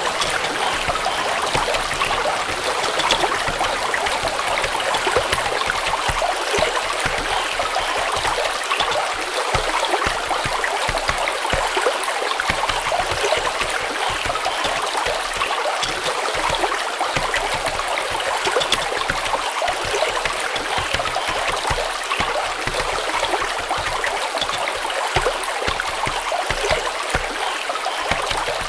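Running stream water, a steady even rush of flowing water with fine trickling and splashing detail.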